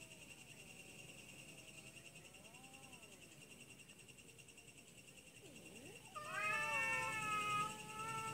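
Domestic cats yowling at each other in a fight standoff: faint, low, wavering yowls rising and falling, then a loud, long yowl about six seconds in that trails off quieter. Steady high insect trilling carries on underneath.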